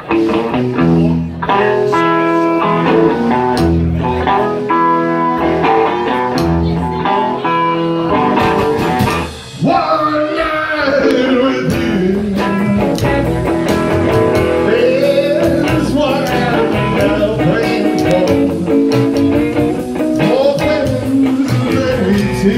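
Live rockabilly-blues band playing. A guitar riff of stepped notes runs for about nine seconds, there is a brief break, and then a voice sings over the band.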